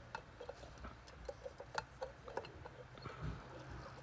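Faint, irregular small ticks and taps of a soldering iron tip working across the pins of a USB-C port on a circuit board. A low steady hum comes in about three seconds in.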